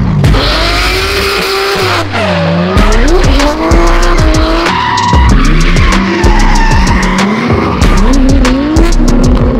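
Professional drift car's engine revving hard, its pitch rising and falling again and again as the driver works the throttle through a slide, over tyres squealing and short sharp cracks.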